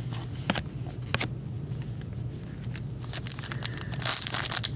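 Hockey trading cards being handled: two sharp clicks in the first second and a half, then from about three seconds in a dense crinkling and crackling of packaging.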